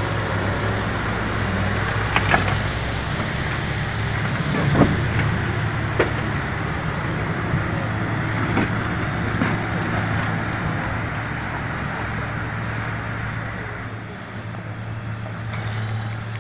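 Heavy diesel engines running steadily under load as a big articulated farm tractor drags a semi-trailer truck out of deep mud, with a few sharp knocks in the first six seconds.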